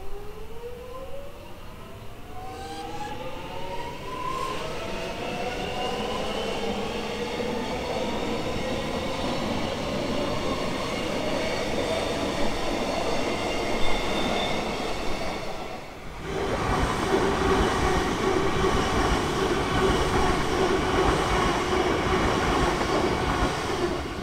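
Melbourne Metro suburban electric train running past, its electric traction motors giving a whine that climbs steadily in pitch over the first few seconds as it gathers speed, followed by the steady noise of wheels on rails. A sudden break comes about 16 s in, after which more train running noise continues with a held tone.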